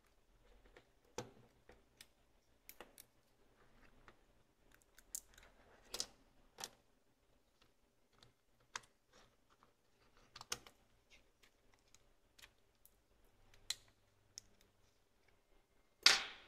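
Irregular small clicks and taps of plastic and metal as a Ricoh GR Digital III's body panels are worked with a thin metal pry tool and fingers, with one louder knock near the end.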